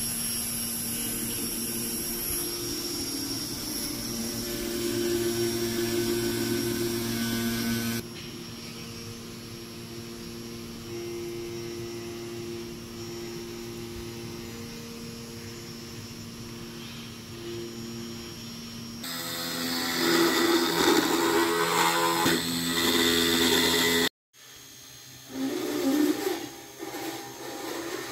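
Electric motors of a surgical robot running with a steady whine. Later, a louder, rougher grinding of a powered surgical burr working into bone, cut off briefly and then resumed.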